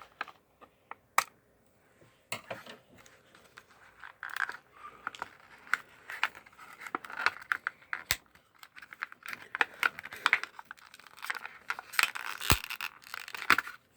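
Toy action-figure packaging being opened by hand: cardboard and plastic tearing and crinkling, with scattered sharp clicks and a few louder snaps.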